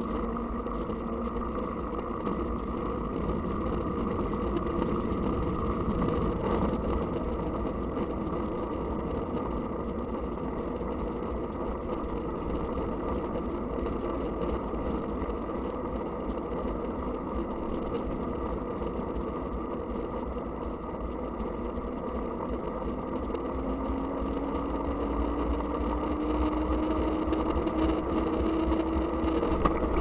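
Mountain bike riding on a paved road, heard through a bike-mounted camera: steady wind rumble on the microphone and tyre noise. A faint hum rises slowly in pitch over the last several seconds.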